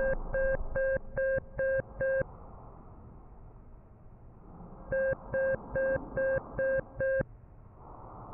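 Digital alarm clock beeping: two bursts of six short, shrill electronic beeps about two a second, with a pause of nearly three seconds between them.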